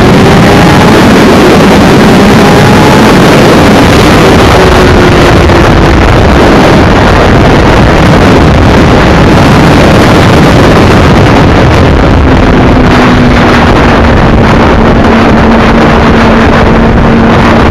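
Kawasaki ZX-6R 636 inline-four sport bike engine at highway cruising speed, largely buried under heavy wind rush on the microphone. The engine note rises through the first few seconds and holds a steady pitch in the second half.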